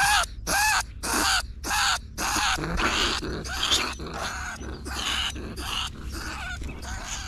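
A trapped large bandicoot rat screaming in distress and aggression: about five harsh calls, each rising then falling in pitch, roughly two a second. After about two and a half seconds the calls give way to rustling and rattling as the wire cage trap is handled.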